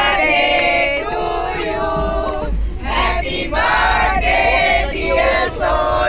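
A group of people, women and men, singing together in unison in short held phrases.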